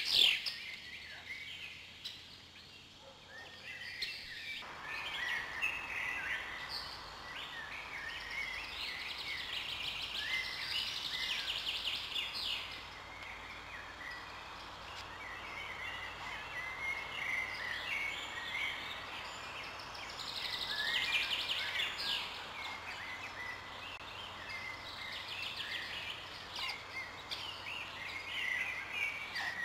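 Small forest birds singing and calling: many short chirps and trilled phrases from several birds, overlapping. A steady hiss sets in underneath about four seconds in.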